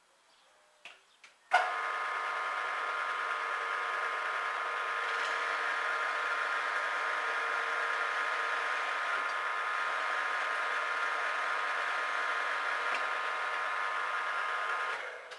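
Warco Major geared-head mill-drill switched on with a sharp click about a second and a half in, then running steadily with a whine of several held tones while a drill bit is fed down into a clamped metal plate. It winds down just before the end.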